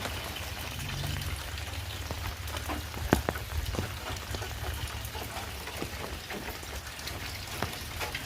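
Heavy rain falling steadily, with many sharp close drops striking nearby and one louder hit about three seconds in, over a steady low rumble.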